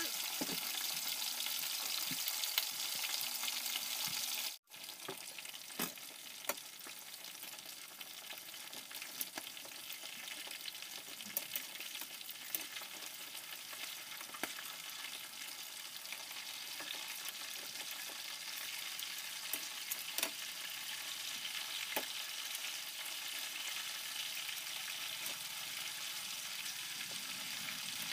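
Chicken wings sizzling steadily as they brown in hot oil in a metal wok, with scattered sharp clicks of metal tongs against the pan as the wings are turned. The sizzle cuts out for an instant about four and a half seconds in.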